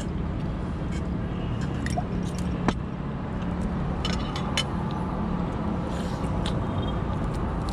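Steady low mechanical rumble, with light clicks and clinks of shellfish shells and utensils against plates scattered through it as shellfish is cracked open and eaten by hand.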